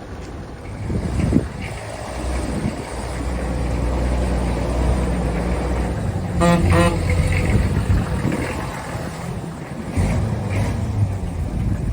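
Vintage Guy Vixen Special single-decker bus with its engine running, a low rumble that builds about a second in. About halfway through, the bus gives a brief horn toot of about half a second.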